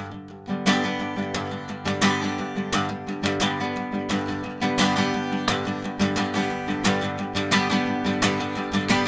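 Acoustic guitar strummed with a pick in fast alternate down-and-up strokes across several strings of a held chord, with regularly spaced louder accented strokes.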